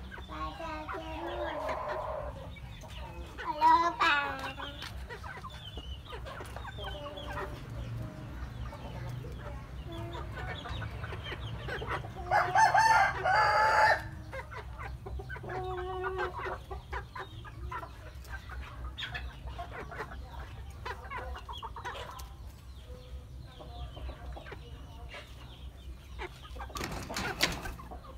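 Young roosters of a Cuban breed clucking and calling, with one loud crow of about a second and a half about halfway through. Near the end comes a brief burst of wing flapping.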